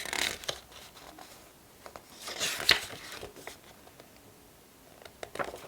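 Paper rustling in a few short bursts, the loudest about two and a half seconds in, with some light taps.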